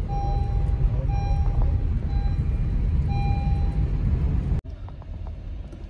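Car driving on a mountain road, heard from inside the cabin: steady low engine and road rumble, with a high beeping tone sounding four times in the first four seconds. About four and a half seconds in, the sound drops suddenly to a quieter rumble.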